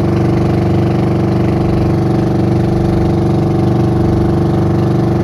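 Small fishing boat's engine running steadily as the boat cruises under way, with an even, unchanging note.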